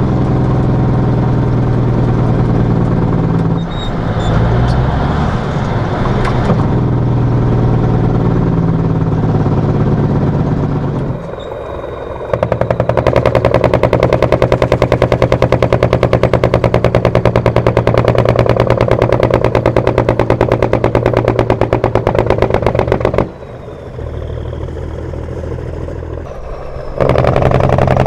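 1952 Kenworth CD521's Cummins 855 (14 L) diesel through dual 7-inch pipes, first running steadily, then, after a brief quieter dip, letting out the loud rapid-fire chatter of its Jacobs engine brake for about ten seconds. It drops back briefly and the Jake brake chatter starts again near the end.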